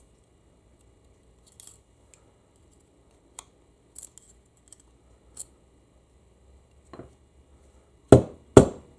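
Light metallic clicks and scrapes of a pick working small parts in the bores of a U140 transmission valve body, followed near the end by three loud, sharp knocks about half a second apart.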